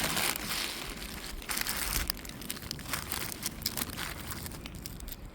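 Plastic snack wrappers and a bag rustling and crinkling as packaged snacks are handled, with irregular small crackles.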